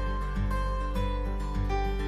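Background music: an acoustic guitar instrumental of plucked notes.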